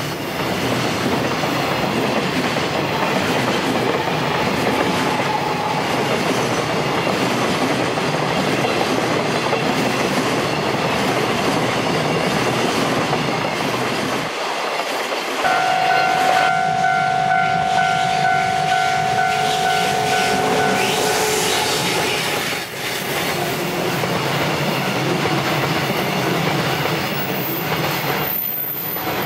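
Freight train of container flat wagons rolling past at close range. Just past the middle, a steady high tone sounds over the rolling noise for about five seconds.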